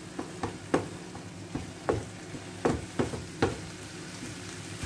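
Wooden spatula stirring and scraping a sizzling mixture of onions, peppers and minced meat in a frying pan, with irregular knocks of the spatula against the pan over a steady frying sizzle.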